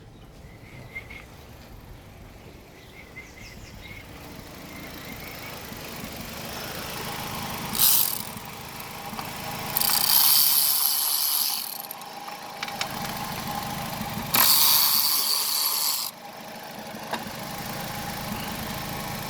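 2005 Nissan Altima engine idling with a misfire, growing louder over the first half. Three loud hissing bursts break in: a short one about eight seconds in, then two longer ones of about two seconds each.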